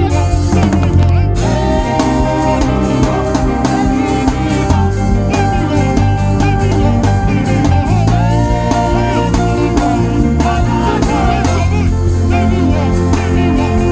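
Loud worship band music with drums and bass keeping a steady beat under held keyboard notes.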